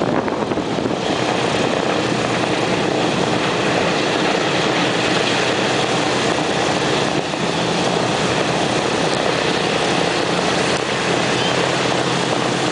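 Boeing B-17's Wright R-1820 Cyclone nine-cylinder radial engines running steadily at idle, propellers turning, loud and even.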